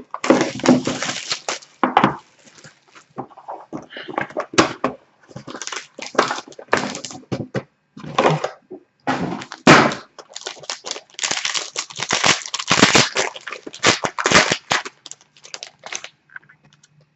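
Plastic shrink wrap and cardboard packaging being torn and handled as a sealed trading-card box is opened: irregular crinkling, tearing and crackling with a few thunks, dying away near the end.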